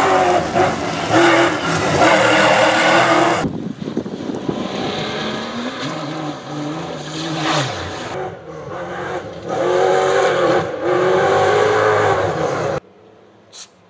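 Rally-raid competition cars' engines revving hard in several bursts, the pitch climbing and dropping with each gear change. The sound cuts off sharply near the end.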